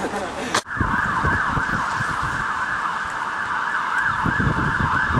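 Emergency-vehicle siren wailing in a fast up-and-down yelp, about three rises a second. It cuts in abruptly about half a second in, over low knocking and rumble.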